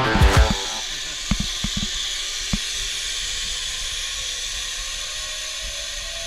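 Zip-line trolley running down a steel cable: a steady hiss with a faint whine rising slowly in pitch, and a few knocks in the first couple of seconds.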